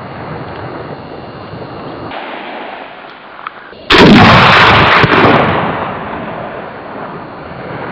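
A single shot from a 20 mm Sarac semi-automatic rifle (20×110 mm) about four seconds in: a sudden, very loud blast with a long rolling tail that fades over about two seconds. A second, smaller sharp crack comes about a second after the shot.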